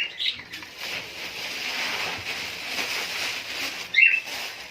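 Budgerigars chirping briefly, once just after the start and once about four seconds in, over a steady hiss.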